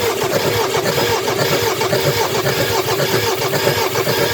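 Starter motor cranking the 2014 Ford Ranger's 2.2 L four-cylinder diesel engine in one long, steady, evenly pulsing crank. The engine turns over but does not catch: a no-start.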